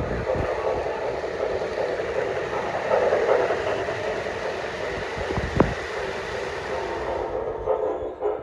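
O gauge model train running along three-rail track, a steady motor and wheel rumble that grows louder as the train passes close about three seconds in, with a few sharp clicks from the wheels and track a little later.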